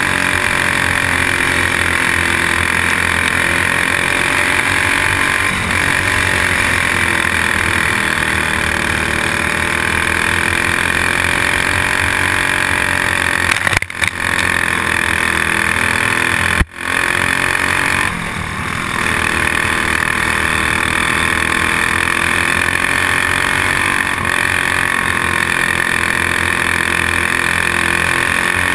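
Single-cylinder four-stroke clone racing-kart engine running hard, heard from on board, its pitch rising and falling in slow waves as the revs change. The sound breaks off for an instant twice midway through.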